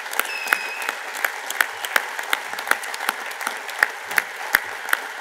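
Large audience applauding in a standing ovation: a dense, steady patter of many hands clapping, with a few louder claps from close by standing out.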